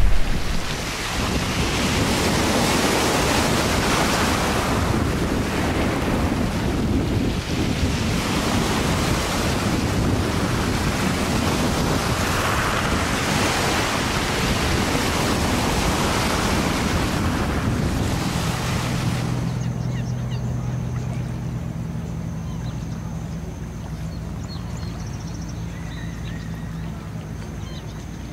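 Small waves washing up on a pebble beach, the surf swelling and easing every two to three seconds. About two-thirds of the way through, the wash fades and a steady low hum takes over.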